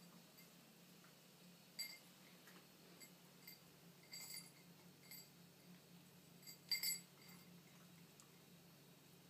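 Near silence: a faint steady low hum with a few soft clicks and rustles from a hand stroking a sleeping tabby cat's fur, the loudest near seven seconds in.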